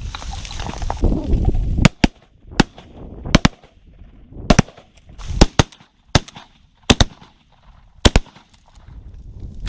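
Shotguns fired by several hunters at once, about a dozen sharp shots over some six seconds, starting about two seconds in, some shots in quick pairs.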